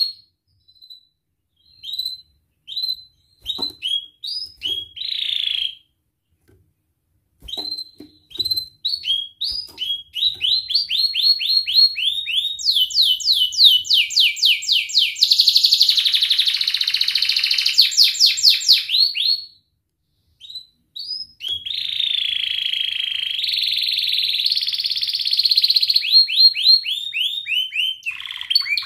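Domestic canary singing: at first short, scattered chirps with brief pauses, then long fast rolling trills of rapidly repeated downward-sweeping notes that run into nearly continuous song.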